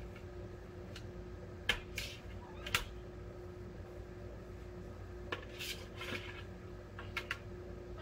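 Umbrella cockatoo's beak and feet knocking and scraping against a plastic bucket as it digs out microfiber cloths: a handful of sharp clicks and taps in irregular clusters.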